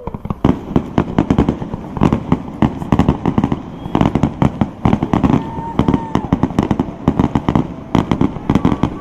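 Fireworks going off in rapid succession: a dense run of bangs and crackles, several a second.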